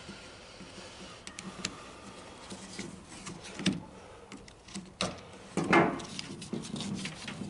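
Scattered light clicks and knocks of a plastic lawn mower recoil starter housing and a screwdriver being handled while the starter rope is threaded through, with a louder knock or two about five to six seconds in.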